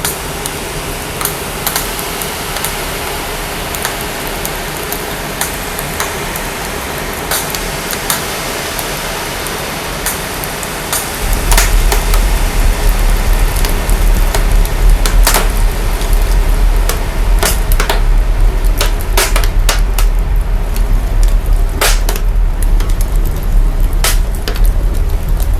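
Fire crackling and hissing, with sharp pops scattered through it, the recording heavily processed. About 11 seconds in, a deep sub-bass rumble comes in and the whole sound gets louder.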